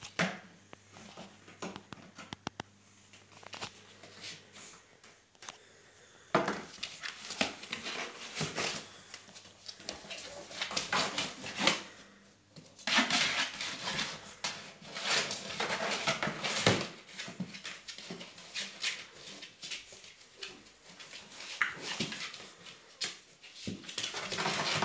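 Pug puppy scrabbling about in a cardboard box: irregular rustling, scratching and knocking of paws and body against the cardboard. A few clicks at first, then dense and busy from about six seconds in.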